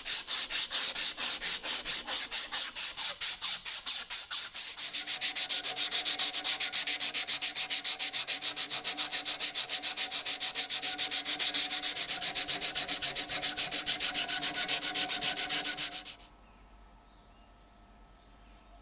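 Abrasive cloth and sandpaper rubbed by hand over the rusty steel ring and socket of a Mosin–Nagant bayonet, in quick even back-and-forth strokes of about three a second, taking off rust. The sanding stops suddenly about sixteen seconds in, leaving quiet room tone.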